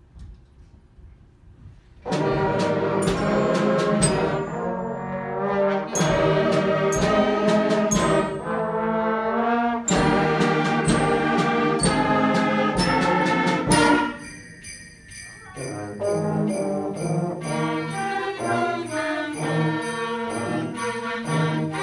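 School concert band playing, brass and woodwinds sounding together with percussion hits. The music starts about two seconds in and thins out briefly a little past the middle.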